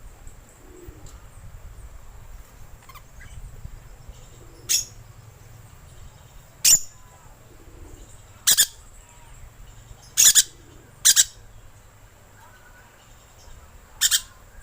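Lorikeet giving six short, shrill screeching calls, spaced one to three seconds apart, as used to lure lorikeets.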